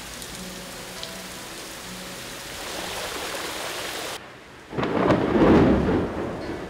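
Ocean surf breaking. A steady hiss of whitewater cuts off abruptly about four seconds in, then a big wave breaks with a heavy, deep rumble that swells and fades.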